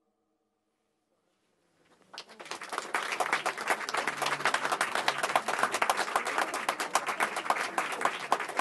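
Near silence for the first two seconds, then audience applause rises quickly and continues as dense, steady clapping.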